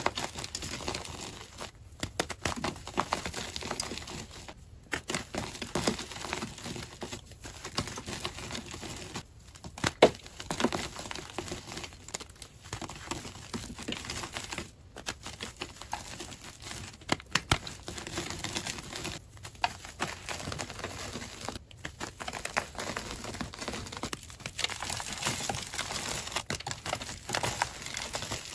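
Soft gym chalk being squeezed and crumbled in a bare hand: a dense, dry crunching and crackling of many small clicks as chunks break and powder falls. It stops briefly every few seconds.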